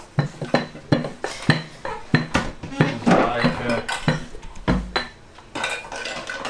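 A rolling pin rolling out pizza dough quickly on a kitchen worktop: a fast run of sharp knocks and clatter, a few a second.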